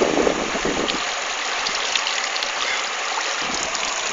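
Shallow river water running over stones: a steady rushing hiss, with a low rumble in the first second that drops away.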